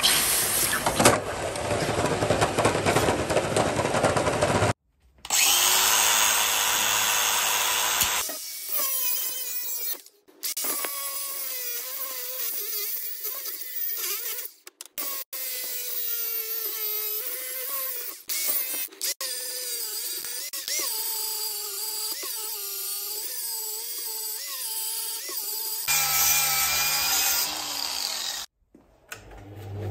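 A hot Nordic gold casting hissing as it is quenched in a tank of water, then a DeWalt angle grinder working on the clamped cast plaque. The grinder's motor whine wavers, dipping and rising as the disc bears on the metal and eases off.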